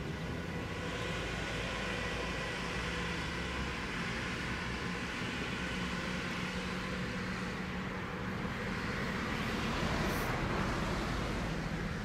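Road traffic going by, a steady wash of tyre and engine noise that swells a little about ten seconds in, with a faint steady hum underneath.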